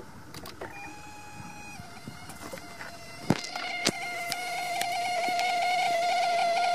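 Mercedes-Benz V-Class (W639) power-folding door mirror motor running as the mirror folds. A thin whine gives way, after a sharp click about three seconds in, to a louder buzzing whine that builds steadily. This is the abnormal noise the mirror makes when folding.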